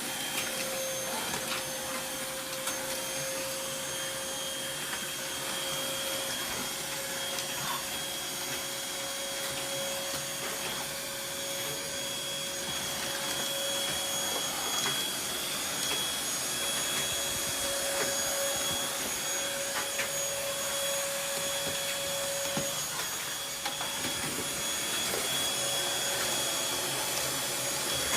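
Vacuum cleaner motor running steadily after spinning up, a constant whine over a rushing of air, with a few faint clicks.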